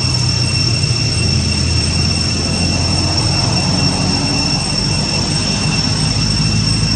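Steady high-pitched insect drone holding one pitch, over a low rumble.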